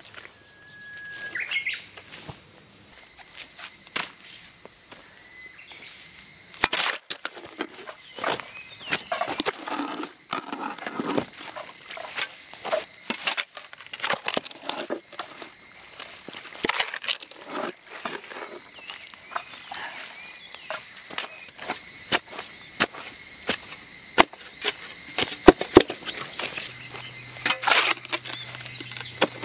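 A shovel digging a ditch in wet, grassy soil: irregular chops and scrapes as the blade cuts into turf and mud and throws it aside. It is sparse at first, then a busy run of strikes from about seven seconds in.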